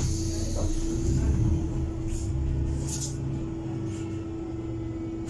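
Heuliez GX337 CNG city bus heard from inside the cabin while moving: a low engine rumble under a steady whine. There is a knock at the start, and the rumble swells about a second in and eases off after three seconds. Two brief hisses come around two and three seconds in.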